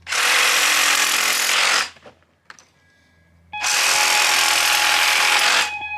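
A power tool cutting back the form ties that stick out of a concrete foundation wall, in two runs of about two seconds each with a short pause between.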